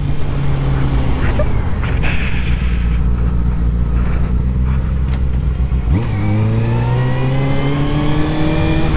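Honda CBR600F2 inline-four motorcycle engine heard from the rider's seat, running steadily at low speed, then about six seconds in pulling away with a steadily rising pitch as it accelerates.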